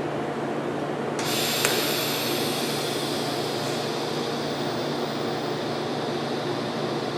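TIG welding arc on a square-tubing frame, striking about a second in and then hissing steadily over a constant machine hum.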